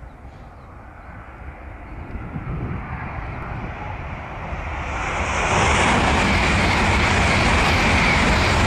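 Shinkansen high-speed train approaching at speed: a faint rumble builds gradually, then swells about five seconds in into a loud, steady rush as the train passes close by.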